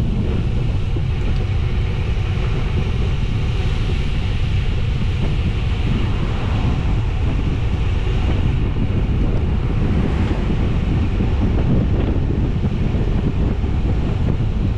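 Steady, loud wind rushing over the microphone of a camera riding on a moving road bicycle, with the rumble of road traffic mixed in.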